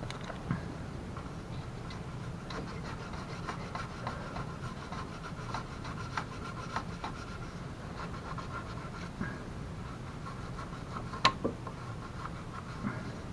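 Hands working on a mobility scooter's rear hinge: rubbing and scraping with scattered light clicks, and one sharp click about eleven seconds in, over a steady low hum.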